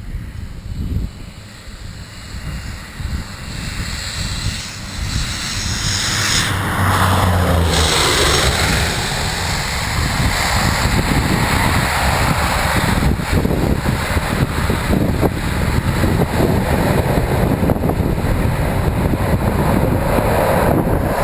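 Small propeller aircraft landing. Its engine noise swells from about four seconds in, peaks with a sweeping whoosh as the plane passes low overhead about seven seconds in, then carries on steadily as it rolls out down the runway. Gusts of wind rumble on the microphone.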